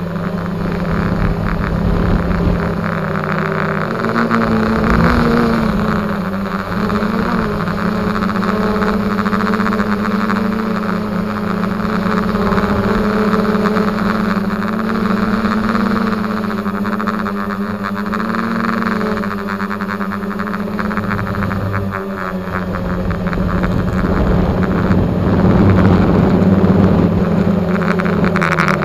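X450 drone's electric motors and propellers humming in flight, heard close up from the onboard camera, the pitch rising and falling as the throttle changes, most clearly about four to seven seconds in.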